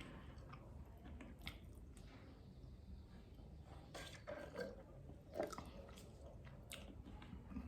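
Faint close-miked chewing: soft, scattered mouth clicks and crunches, a little louder about four to five and a half seconds in.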